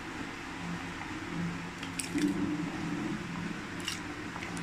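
Cut raw potato sticks being tipped into a steel pot of warm salted water, with soft wet splashing and a couple of faint clicks, about two seconds in and near the end.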